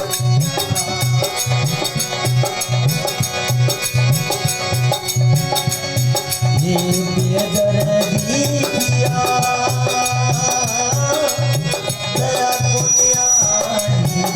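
Instrumental passage of a Rajasthani folk bhajan: a steady low drum beat with fast shaker-like ticks over a sustained melody line.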